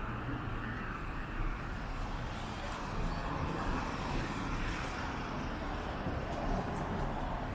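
Road traffic passing on a busy city street: a steady wash of tyre and engine noise that swells and fades as vehicles go by.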